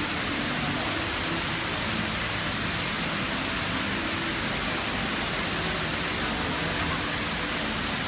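Steady rushing of water sheeting down a multi-storey indoor waterfall wall.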